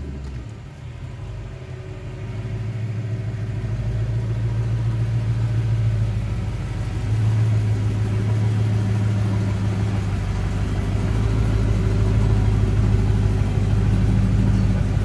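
Ford Mustang Boss 302's 5.0-litre V8 idling as the car creeps forward at low speed, with a steady low engine note that gets louder as the car comes close, stepping up about halfway through.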